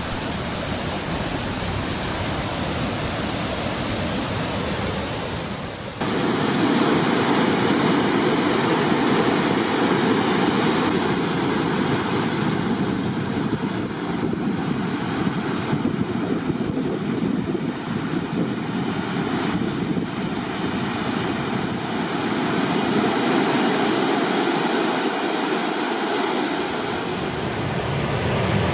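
Steady rushing noise of a waterfall on a river running high after heavy rain. About six seconds in it turns suddenly louder and fuller.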